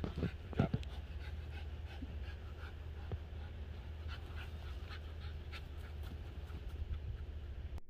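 A dog panting in quick, even breaths, about three a second, over a steady low rumble; the sound cuts off abruptly near the end.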